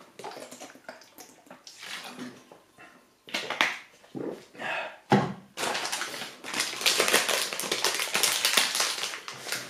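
Gulps of water from a plastic bottle, then a few knocks and handling noises, and from a little past halfway a dense run of rapid clicks.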